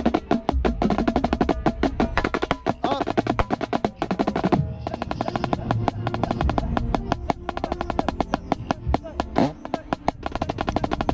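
Marching drums struck close to the microphone, fast stick strokes in a dense drumline pattern, with other band music underneath.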